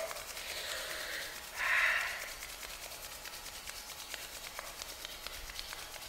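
Palms rubbed briskly together, a soft swishing friction with fine, rapid ticks, and a louder rush of noise about two seconds in.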